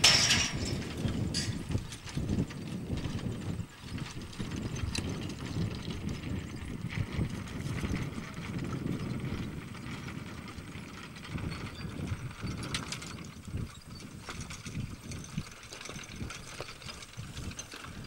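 Draft horses' hooves stepping on the hay field as the team pulls the cable of a horse-powered hay stacker, with knocks and clanks from the stacker's frame and rigging as the fork lifts its load of hay. A sharp, loud knock comes right at the start.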